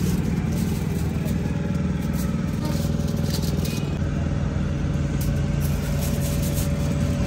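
An engine running steadily, a low, even drone that does not rise or fall, with a thin steady whine joining about three seconds in.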